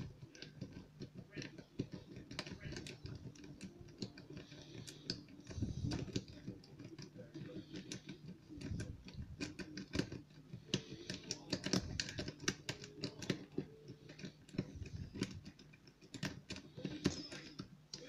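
A lock pick raking a brass pin-tumbler lock cylinder: rapid, irregular metal clicking and scraping as the rake is scrubbed in and out over the pins.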